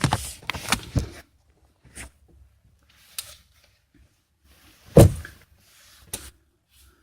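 A few clunks and knocks from a car door being worked, the loudest a single thump about five seconds in.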